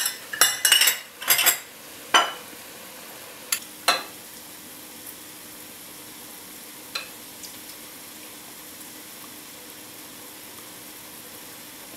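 A metal spoon clinks and scrapes against a metal measuring cup as blended tomatoes are spooned out, several sharp clinks in the first two seconds and two more around four seconds in. Under it, a steady soft sizzle from food cooking in the pots on the stove.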